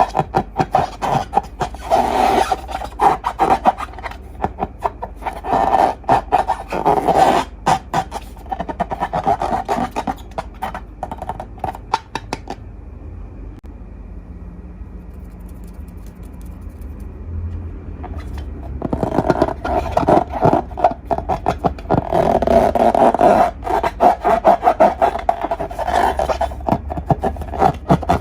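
Slime being squeezed and worked by hand: bursts of sticky crackling and squelching, with a quieter stretch midway before it picks up again.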